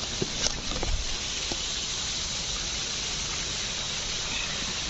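Steady hiss with a few light knocks and clicks in the first second, from a hiker moving over rocks.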